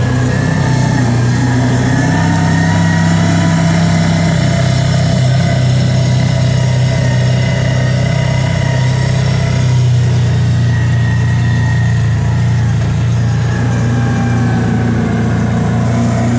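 Kawasaki Teryx side-by-side's engine running steadily while driving along, with small shifts in pitch and a fainter whine above it that drifts slowly up and down.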